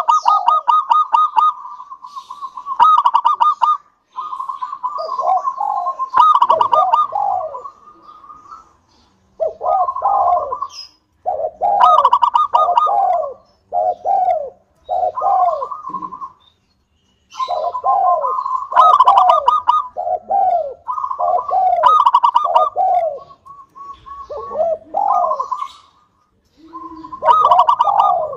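Local zebra dove (perkutut) singing: repeated cooing phrases, each a quick run of rapid notes followed by lower, falling coos. Short pauses come between the phrases.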